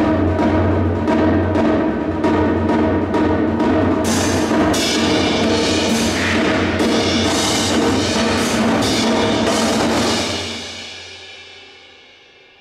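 Percussion ensemble playing loud together: drums and cymbal crashes over a steady low drum roll. About ten seconds in the playing stops and the ringing dies away.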